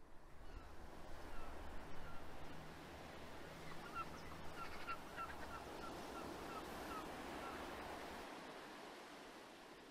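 Faint surf washing on a beach, with a quick series of short bird calls, about three a second, in the middle.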